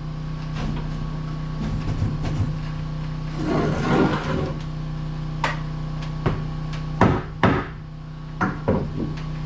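Knocks and thuds on a wooden wall panel being forced into place, with a stretch of scraping about four seconds in and six sharp knocks over the last four seconds, over a steady low hum.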